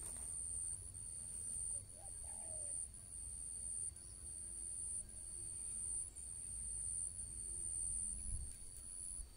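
Outdoor ambience of insects trilling high and steadily, breaking off briefly about once a second, over a low wind rumble, with a faint bird call about two seconds in.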